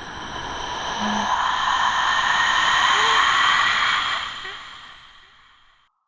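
Cinematic swell sound effect: a hissing wash with faint steady tones in it builds to a peak over a few seconds, then fades away.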